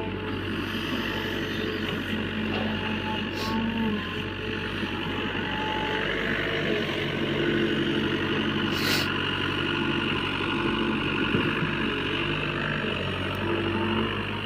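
Backhoe loader's diesel engine running steadily under working load, its tone shifting up and down as the digging and loading goes on. Two brief sharp clicks, about 3.5 and 9 seconds in.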